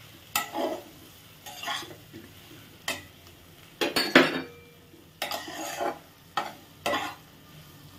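Flat spatula stirring fried potatoes through a thick masala in a cooking pot: a string of separate scrapes and knocks against the pot, roughly one a second, the loudest about four seconds in.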